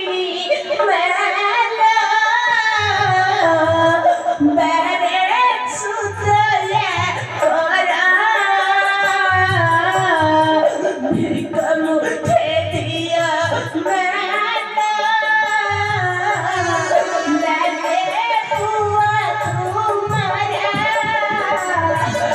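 A song from an Odia stage drama: one voice singing a slow, wavering melody over instrumental accompaniment, with a low drum coming in for short spells every few seconds.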